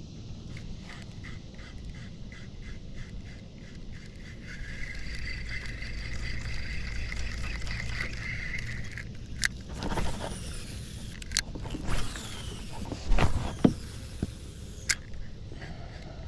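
Cicadas calling from the riverside trees: a pulsing call, then a steady high buzz for several seconds. About halfway through, a run of sharp knocks and scrapes takes over, loudest a little past the three-quarter mark.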